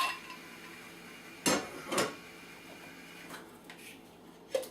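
Ice cubes dropping into a blender jar: a sharp clink about a second and a half in, another half a second later, and a lighter one near the end.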